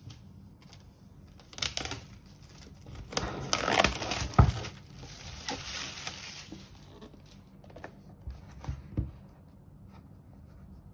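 Tear strip pulled on an iPad Pro box's clear plastic wrapping film, then the film crinkling and tearing as it is stripped off the box and crumpled, densest and loudest about three to six seconds in. Scattered light taps and rubs of hands on the cardboard box follow.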